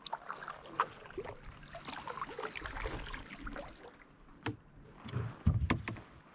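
Kayak paddle splashing and dripping water through the middle, then a few sharp knocks near the end as the paddle is set down in the kayak.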